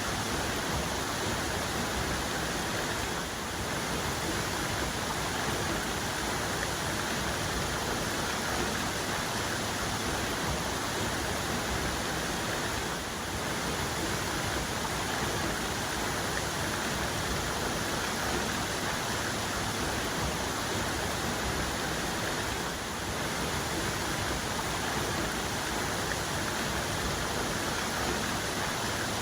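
Waterfall cascade falling steadily, a constant dense rush of water with no other sounds on top.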